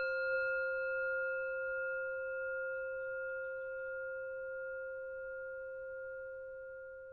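A struck singing bowl ringing out: a steady low tone with several higher overtones, slowly fading.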